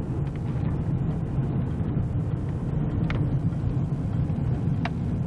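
Car driving along a road, heard from inside: a steady low rumble of engine and road noise, with a couple of faint ticks.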